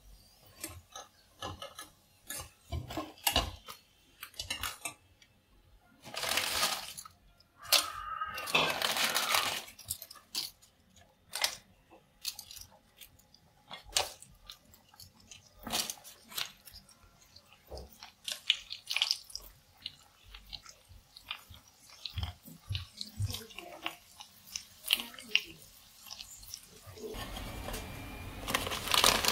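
Pani puri shells frying in hot oil: a wire spider skimmer clicks and scrapes against the pan in many short, sharp taps, with a few longer stretches of sizzling as shells go into the bubbling oil. The crisp, hollow shells crunch and clatter as they are lifted and moved.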